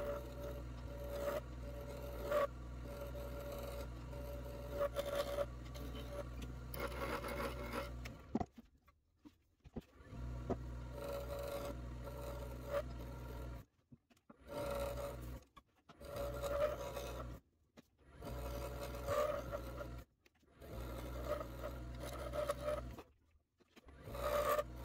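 A wood lathe runs with a steady motor hum while a turning tool scrapes and cuts a spinning epoxy-and-acrylic duck call blank to shape. The sound cuts out abruptly several times.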